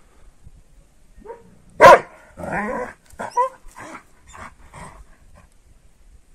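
Kangal shepherd dog barking: one loud bark about two seconds in, then a longer bark and a string of shorter barks over the next few seconds.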